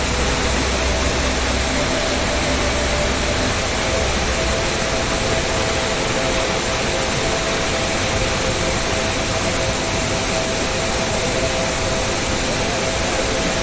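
Large waterfall rushing: a steady, unbroken sound of falling water.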